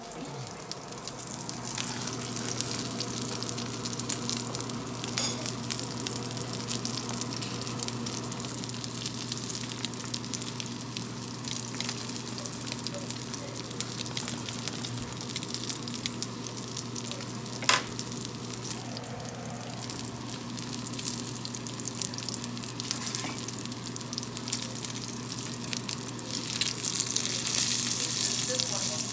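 A5 Japanese wagyu striploin searing in a cast iron skillet, its fat sizzling and crackling steadily over a low steady hum. A single sharp click comes about two-thirds of the way through, and the sizzle grows louder near the end.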